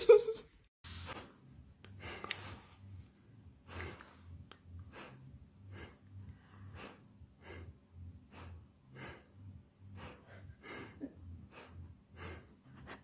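Soft, short puffs of breath repeated about twice a second, a person blowing on a husky's nose, with a faint low rumble under the puffs.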